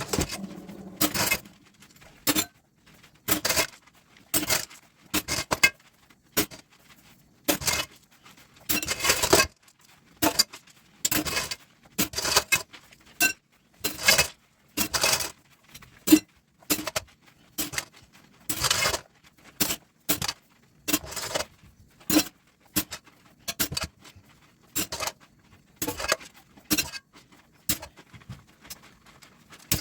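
Dishes and utensils clinking as they are handled and washed, in short irregular bursts with brief quiet gaps between.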